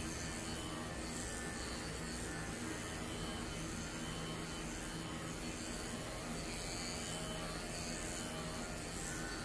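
Cordless pet clipper running with a steady buzz as it is worked through a small dog's coat, over a steady background hiss.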